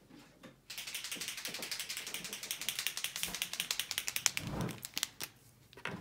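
Red acrylic paint pen being shaken, the mixing ball inside rattling in a fast, even run of clicks for about four seconds.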